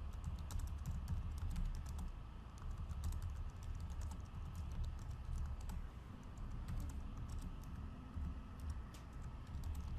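Typing on a computer keyboard: a run of irregular key clicks, entering a text comment, over a low steady rumble.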